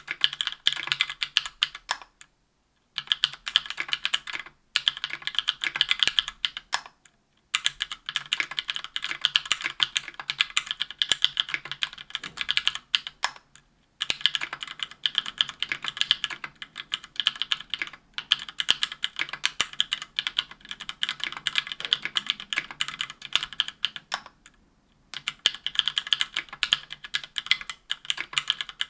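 Fast continuous typing on a 60% aluminum-case mechanical keyboard fitted with stock, unlubricated SP-Star White Meteor 57 g linear switches on an aluminum plate, with GMK keycaps: a dense run of sharp keystroke clacks. There are brief pauses a few times, about two, seven, fourteen and twenty-four seconds in.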